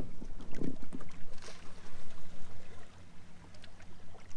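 Small waves lapping and splashing against a plastic kayak hull as it drifts in the current, uneven and constantly rising and falling, with a faint steady hum underneath.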